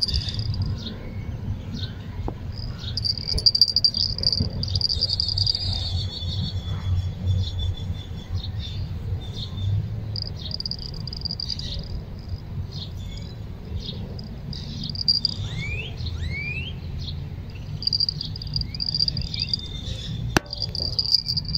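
Insects trilling high and shrill in repeated bursts of a second or two, over a steady low rumble. Two quick rising bird chirps come about two-thirds through, and there is a single sharp click near the end.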